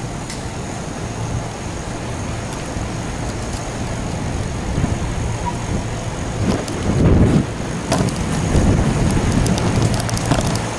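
Bicycle rolling down a concrete parking-garage ramp, with wind rushing over the handheld camera's microphone. Heavier low buffeting gusts come in the second half, along with a scatter of light rattling clicks.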